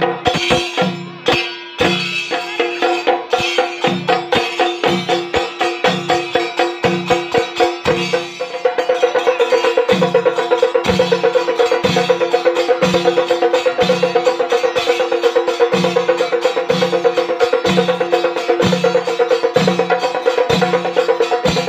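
Chenda melam: a group of Kerala chenda drums beaten with sticks, fast ringing rolls over a deep beat that falls a little faster than once a second. The drumming gets louder and denser about eight seconds in.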